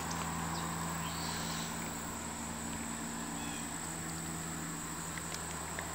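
A steady, high-pitched insect drone over a low, continuous hum.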